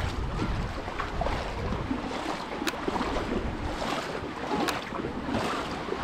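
Seaside ambience: wind buffeting the microphone over the wash of sea waves, with two sharp clicks about two seconds apart.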